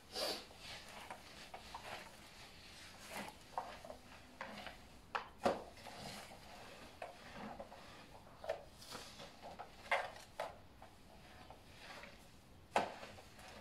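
A string mop being worked over a tiled floor: irregular knocks and short scrapes as the mop and its handle bump and drag, with a sharper knock about five and a half seconds in and another near the end.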